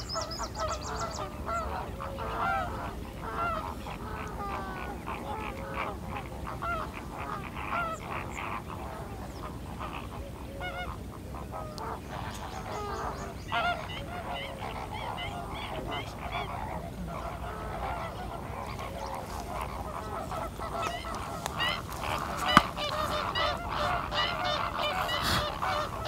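A flock of greater flamingos calling: a continuous chorus of short, goose-like honks that thickens and grows louder near the end, with one sharp tap a few seconds before the end.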